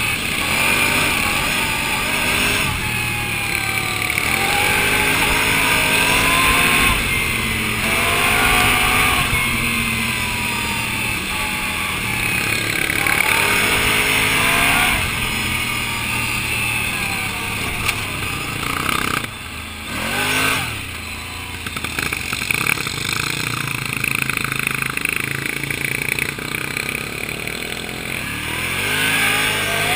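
Can-Am ATV engine running under way, revving up and easing off several times as the throttle is worked, with a brief lull about two-thirds of the way in.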